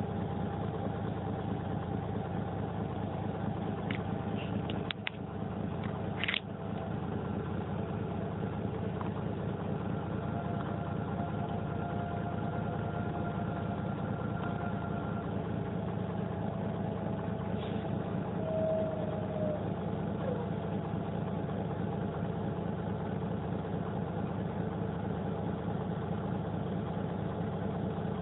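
Cummins LTA10-B252 turbocharged inline-six diesel in a Dennis Dragon double-decker bus, running steadily. About five seconds in the sound briefly dips and ends in a sharp click.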